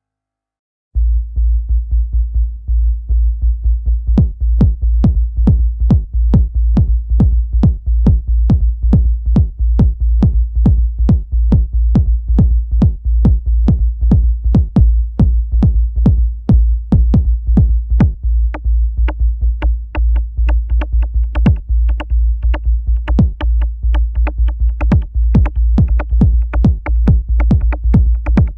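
Electronic dance music with a fast drum-machine beat and heavy bass, starting about a second in after near silence.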